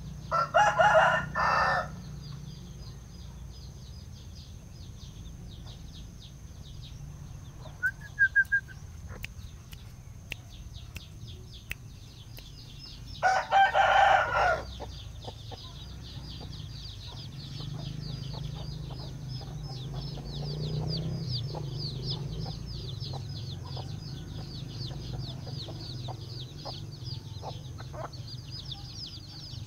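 A rooster crows twice, once just after the start and again about halfway through, each crow about a second and a half long, over a steady, rapid, high-pitched chirring in the background.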